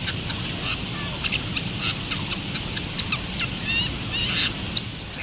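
Long-tailed shrike (cendet) calling in the wild: a run of short, quick chirps and small rising and falling notes, over a steady low rumble.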